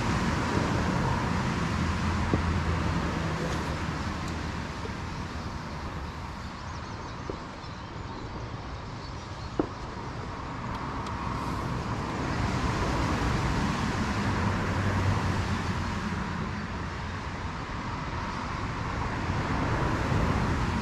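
Road traffic running steadily, with vehicles swelling past twice. A single sharp click about halfway through.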